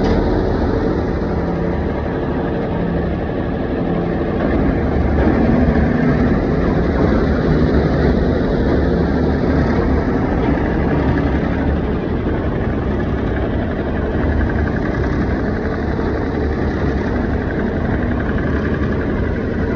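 Heavy machine's engine running steadily, a continuous loud rumble.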